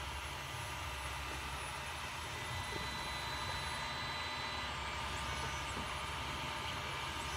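Creality Ender-3 Pro 3D printer running mid-print: a steady whir of its fans and motors, with faint high whines that come and go.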